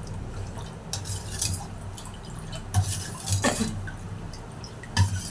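Steel ladle stirring a thin milk pudding mixture in a steel pot, lifting it and pouring it back, with a few short clinks of metal on metal against the pot.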